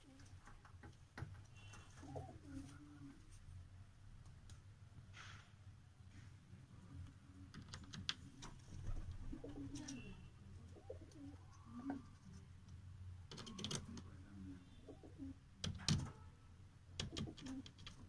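Domestic pigeons cooing softly, several low, wavering coos throughout, with scattered short taps and clicks that grow more frequent near the end.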